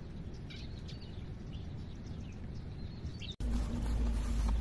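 Small birds chirping in short high calls over a steady low outdoor rumble. A little over three seconds in, the sound cuts out for an instant and a louder low drone with a steady hum takes over.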